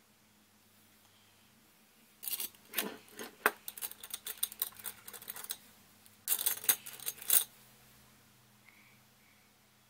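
Makeup brushes and small makeup items clattering and rattling on a table as they are rummaged through for another brush. The rattling comes in two runs: the first starts about two seconds in and lasts some three seconds, and a shorter second one comes about six seconds in.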